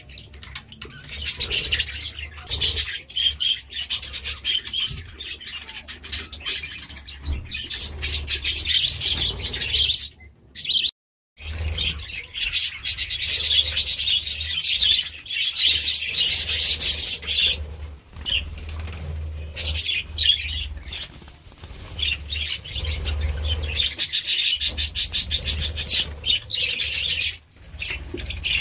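A flock of budgerigars chirping and chattering continuously in fast, busy warbles, over a low hum. The sound cuts out abruptly for about a second near the middle.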